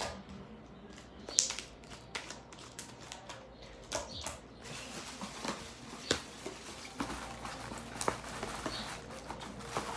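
Homemade glue slime being kneaded and squeezed by hand, giving off irregular sticky clicks and pops, with a few sharper snaps.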